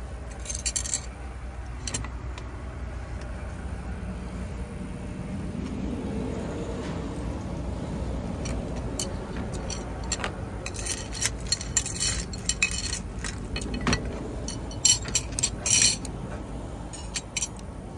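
Metal spoon and fork clinking and scraping against a ceramic plate, in short clusters about a second in and again through most of the second half, over a steady low rumble.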